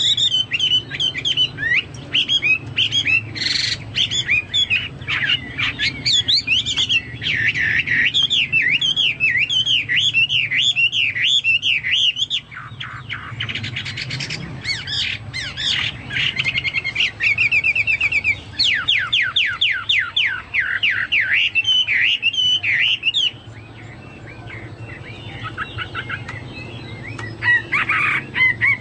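Chinese hwamei singing vigorously: a continuous, loud song of quick rising and falling whistled notes, with fast trills of repeated notes partway through and a brief softer passage near the end. Its song is likened to a cucak Papua or cucak mas.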